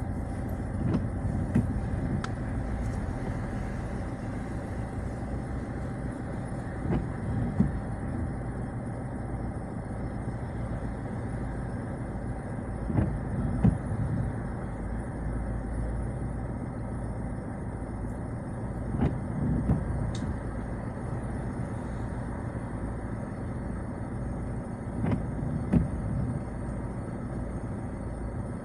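Citroën Xsara driving at night in the rain: a steady low rumble of engine and road noise. Short pairs of knocks come about every six seconds.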